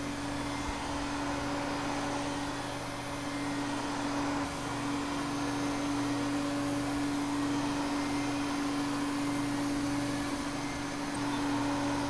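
Vacuum cleaner running steadily: an even rushing hiss with a constant motor hum and one held tone, unchanging throughout.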